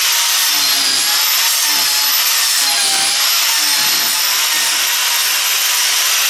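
Power grinder cutting into a wood burl blank, a steady loud grinding with a motor whine that wavers slightly in pitch as the load changes. It is taking the corners off the out-of-round blank to reduce its bounce on the lathe.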